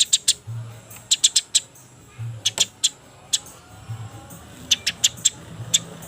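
Eurasian tree sparrows chirping in quick clusters of short, sharp, high chirps, the excited calling of sparrows squabbling. A faint low hum swells underneath every second or two.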